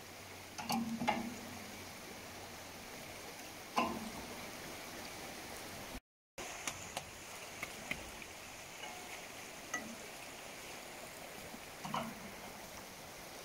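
Steady rush of a fast river, with a few sharp metallic clicks and clanks from a wrench turning the jacking screws that pull the generator back to tension its V-belts. The loudest knocks come about a second in and again near four seconds, with lighter ticks later and one more knock near the end.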